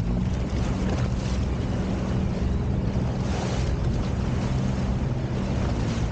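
Sea-Doo personal watercraft engine running steadily at slow trolling speed, a constant low hum, with wind buffeting the microphone and water washing in the wake.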